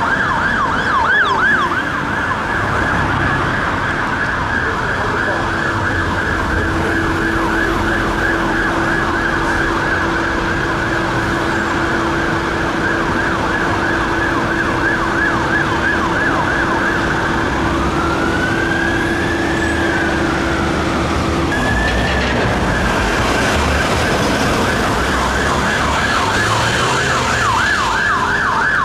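Electronic siren of a London Fire Brigade Scania L360 turntable ladder truck responding to a call, sounding a fast up-and-down yelp over road traffic. About eighteen seconds in it switches to one slow rising-and-falling wail, then returns to the fast yelp near the end.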